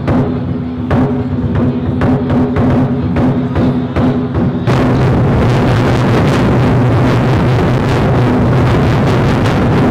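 Twenty-Four Festive Drums ensemble on large Chinese drums: separate drum strikes over a held tone, then about halfway through a sudden switch to a loud, dense, continuous roll of rapid drumming.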